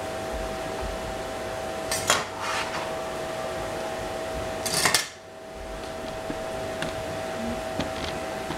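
Metal cooking utensils clattering against cookware: a short cluster of knocks about two seconds in and a louder clatter just before five seconds, over a steady background hum.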